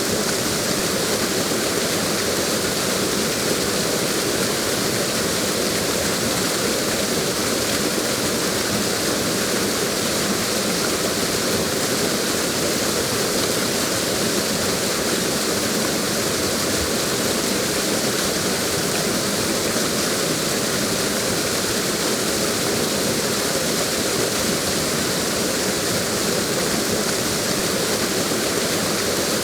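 Waterfall rushing with a steady, even roar of falling water, unchanging throughout.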